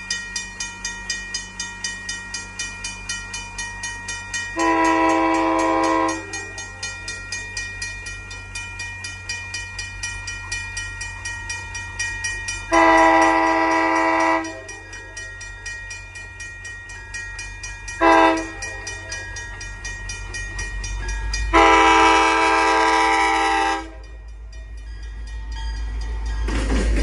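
A diesel commuter train's multi-tone horn sounds the grade-crossing signal: long, long, short, long. Under it a railroad crossing bell dings rapidly and steadily, and the train's engine rumble builds until the locomotive rolls past the crossing near the end.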